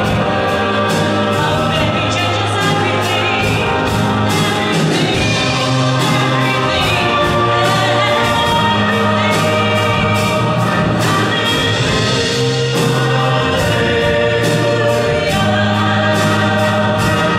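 Large choir singing a Christmas song live with instrumental accompaniment and a steady beat.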